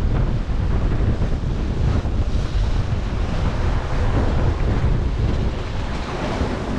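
Strong wind buffeting the microphone over a steady rush of waves around a sailing yacht under way.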